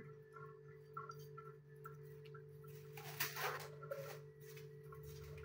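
Quiet kitchen room tone with a faint steady hum. A few soft light taps come about three seconds in.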